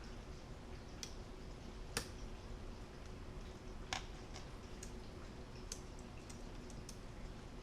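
Scattered faint clicks and taps of a tiny laptop cable connector being worked at by hand, trying to seat it in its socket. There are about half a dozen, the sharpest about two seconds in, over a faint steady hum.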